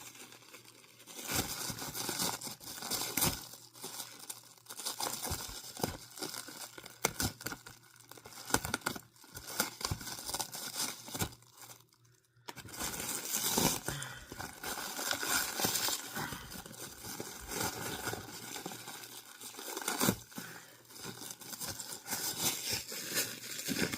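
Plastic packaging crinkling and tearing as reflex bar parts are unwrapped, with scattered sharp clicks and knocks from handling; it pauses briefly about halfway through.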